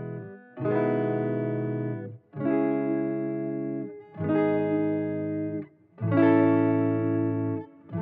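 Background music of guitar chords, each held about a second and a half and then cut off, one after another in an even pattern.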